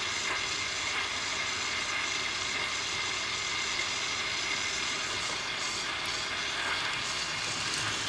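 Jeweller's gas torch burning with a steady hiss, its bushy flame heating a thick sterling silver plate to flow solder onto a bezel.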